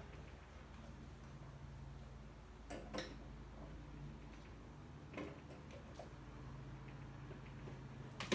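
A few light metallic clicks from a half-inch wrench working the bolts in a fuel tank: two close together about three seconds in and one more about five seconds in, over a faint steady hum.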